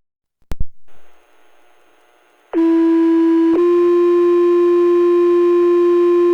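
Two-tone sequential fire pager tone-out received on a Baofeng UV-5R handheld radio scanner. A click and the hiss of the open radio channel come first. Then one steady tone sounds for about a second and steps to a second tone held for about three seconds: the alert that pages out the volunteer firefighters.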